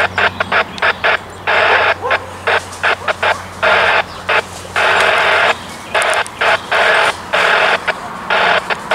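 A railroad scanner radio opening and closing squelch in rapid, irregular bursts of static hiss, some only clicks and others about a second long, each cutting on and off sharply. A faint steady low hum runs underneath.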